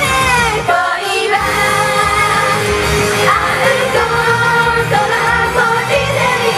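Japanese idol pop song performed live: women's voices singing into microphones over a loud pop backing track. The bass and beat drop out briefly about a second in, then come back.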